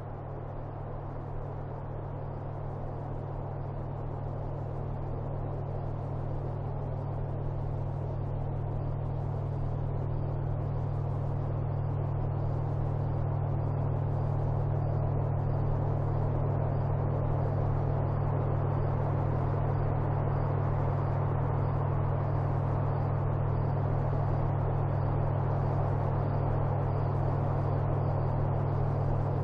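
A steady low hum with a hiss of noise above it, slowly growing louder over the first half and then holding level.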